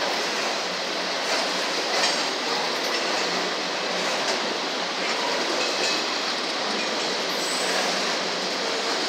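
CSX autorack freight cars rolling past close by: a steady rush of steel wheels on rail, with occasional faint clacks.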